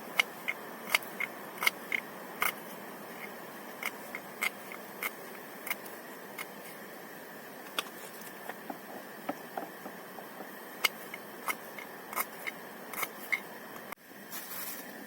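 Irregular sharp clicks and taps, a few a second, over a steady hiss, with a brief break about 14 seconds in.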